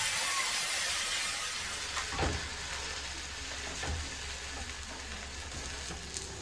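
Egg and nopal omelette sizzling in a skillet on a gas burner, the sizzle easing off a little. A couple of light knocks of a metal spatula against the pan come about two and four seconds in.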